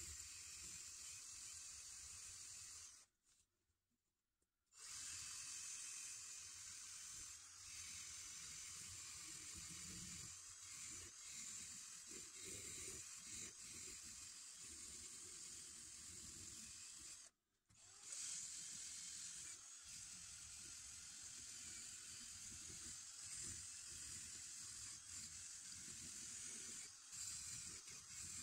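Faint, steady scratchy hiss of a wire brush scouring the last of the rust off a steel moped luggage rack. It stops twice: for about a second and a half a few seconds in, and briefly about two-thirds of the way through.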